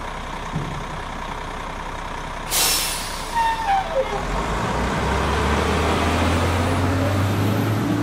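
Garbage truck dumping its load: a steady rush of refuse sliding down, a sharp burst of air hiss about two and a half seconds in, then a falling whine and a few thumps. After that the truck's engine revs up and runs with a low steady drone.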